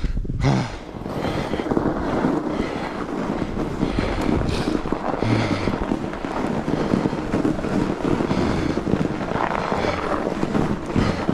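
Norco Bigfoot fat bike rolling along a packed-snow singletrack: a steady rumble from the wide knobby tyres and drivetrain, with wind buffeting the microphone.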